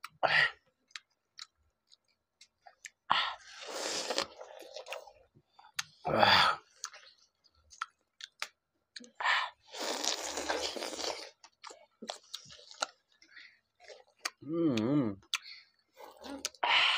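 Several people biting and chewing juicy watermelon slices: crunchy bites and chewing in irregular bursts, with many small wet mouth clicks. A brief voice sounds about three-quarters of the way through.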